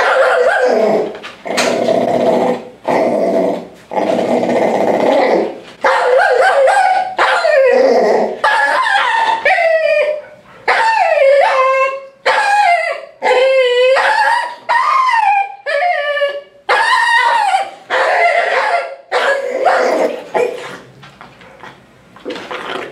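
Small white dog in a cone muzzle crying out over and over, with loud wavering yelps and barks about one a second that slide up and down in pitch, as it fights being held for grooming. The cries stop briefly near the end.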